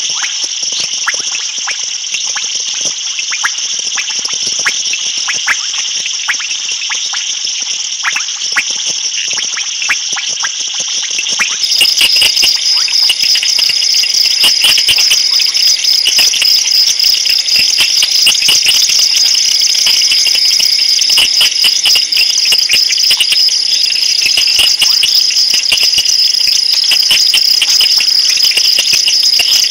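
Night chorus of insects trilling steadily in high-pitched bands, with scattered clicks. About twelve seconds in, a louder and denser pulsing chorus abruptly takes over.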